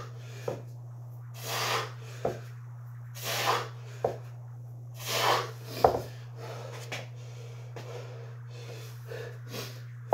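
Forceful breaths during kettlebell upright rows, one about every two seconds, each followed by a sharp knock, over a steady low hum. The breaths stop about six seconds in, leaving the hum with a few faint rustles.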